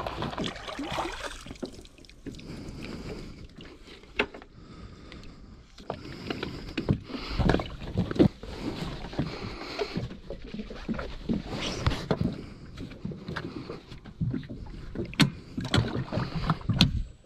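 Irregular knocks, thumps and rubbing from handling rope and an inflatable dinghy pulled alongside a sailboat's hull, with a few louder knocks about halfway through.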